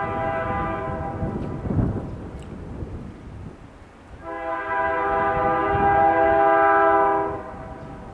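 Diesel locomotive air horn blowing two blasts from an approaching train: the end of one that stops about a second in, then a longer, louder blast from about four seconds in that cuts off near the end.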